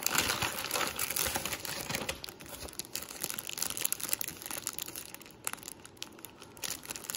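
Brown paper bag rustling, then a clear plastic bread wrapper crinkling as hands handle it: a dense, irregular crackle throughout.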